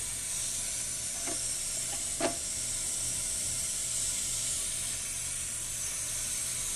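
Older Kohler Highline toilet tank refilling, its old fill valve letting water in with a steady hiss.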